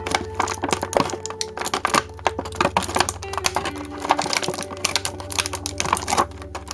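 Rapid, irregular clicking and crackling of plastic toy packaging and an action figure being handled, over background music and a steady low hum.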